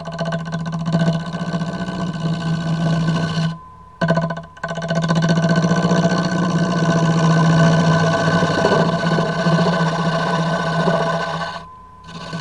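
Wood lathe spinning a mahogany blank on a pin arbor while a hand-held gouge cuts it, giving a steady hum with a rough cutting noise. The cutting noise breaks off briefly a few seconds in and again near the end, as the tool leaves the wood.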